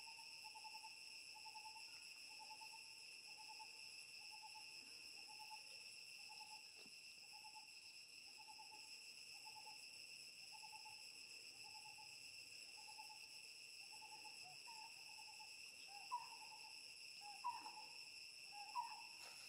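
Faint forest ambience: a steady high-pitched insect drone, with a short hooting bird note repeated about once a second. Near the end a few short rising chirps come in.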